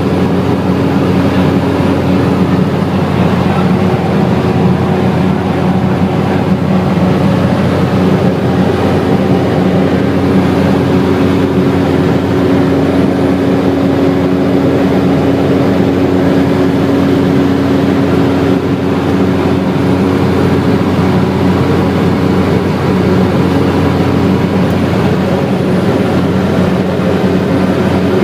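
Cessna 208 Caravan's Pratt & Whitney PT6A turboprop engine and propeller running at a steady power setting: a loud, even drone with a low hum of several held tones that does not change.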